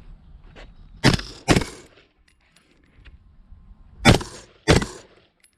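Four gunshots in two quick pairs, each pair's shots about half a second apart and the pairs about three seconds apart, each shot leaving a short ringing tail: double-taps fired at targets.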